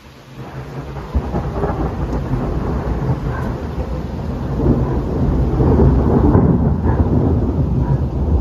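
A long, loud roll of thunder over falling rain, swelling to its loudest about halfway through.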